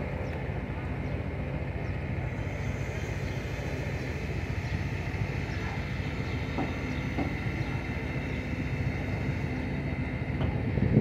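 Crane engine running steadily while it holds a wooden fishing boat on its hook: a low rumble with a steady high whine over it.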